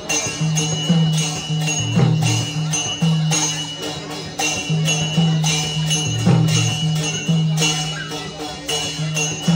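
Live traditional Newar drum-and-cymbal music: hand-cymbal clashes about twice a second, ringing on, over a steady low drum beat accompanying the dance.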